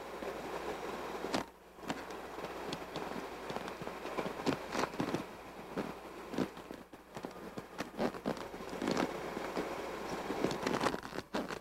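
Creek water rushing over a small rock ledge: a steady hiss of whitewater, broken by many irregular crackles and sharp clicks.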